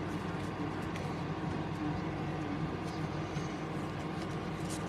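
Steady low room hum, with a few faint clicks and rustles of football trading cards being sorted by hand.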